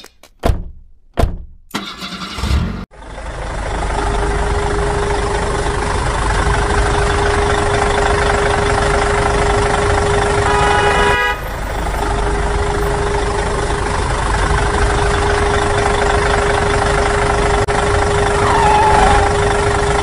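Tractor engine sound effect running steadily, starting after a few short knocks in the first three seconds. A short horn toot comes about eleven seconds in.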